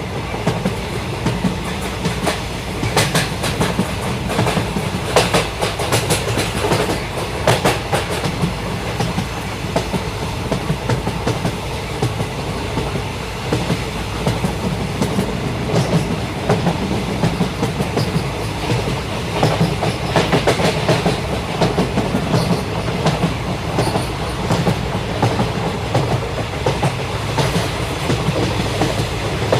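Fast train running at speed: a steady rumble and hiss with repeated runs of clickety-clack as the wheels pass over rail joints.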